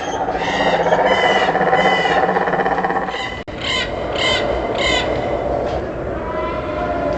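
Bird calls, six short repeated calls about every half second in two runs of three, broken by a brief cut about halfway through, over a steady background bed.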